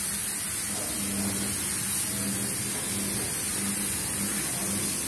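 Steady hissing rush of air in a paint spray booth filled with spray mist, with a low hum fading in and out beneath it.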